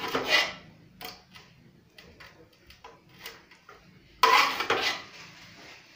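A serving spoon scraping and clinking against metal bowls of rice and curry. A loud clatter at the start and another about four seconds in, with light clicks between.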